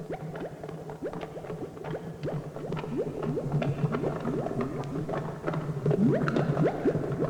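Spooky sound-effect backdrop: a low steady drone under many quick rising blips, like bubbling, that grow louder and busier.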